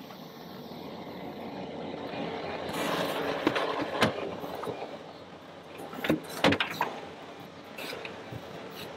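John Deere 325G compact track loader's diesel engine running as the machine drives closer and tips a bucket of topsoil, growing louder toward about three seconds in. Sharp clanks come about four seconds in and twice more around six seconds.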